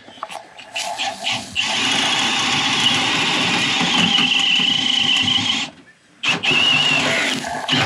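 A small motor running steadily in two spells, cutting out suddenly for about half a second near six seconds in, then starting again.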